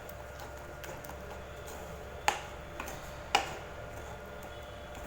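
A metal spatula knocking on a cooking pan, two sharp taps about a second apart with a few fainter ticks, over a steady low hiss, while a coconut masala paste is stirred and sautéed.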